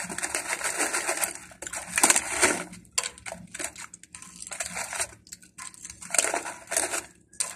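Crunchy snack chips being chewed close to the microphone, in irregular crackly bursts, with the foil snack bag crinkling as a hand reaches in for more.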